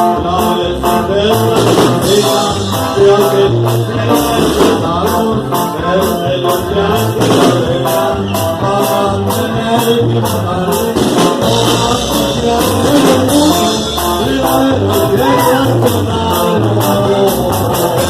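A song with a steady beat: guitar and bass, with a singing voice.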